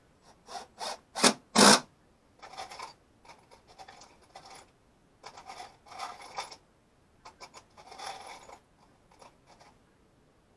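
A series of short scraping and rubbing strokes. The sharpest and loudest come in the first two seconds, then softer, longer scrapes follow in irregular bunches.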